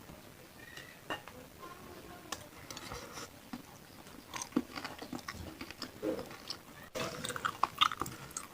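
Close-miked eating of bakso meatball soup with fatty beef trimmings: chewing and biting with small wet mouth clicks, growing busier about seven seconds in.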